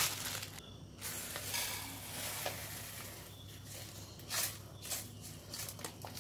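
Dry bread crumbs pouring from a cardboard box onto a ceramic plate: a soft rustling hiss from about a second in to three seconds in, then a few sharper taps.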